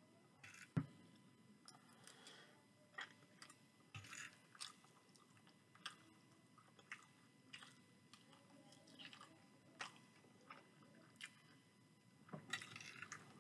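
Faint close-up chewing of chicken curry and rice: soft, wet mouth sounds with scattered small clicks, and a longer, louder burst near the end as the spoon goes back into the rice on the plate.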